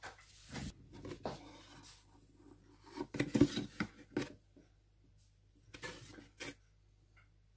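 A spoon adding plain flour to a wooden bowl: a handful of short scrapes and light taps, the loudest cluster a little after the middle.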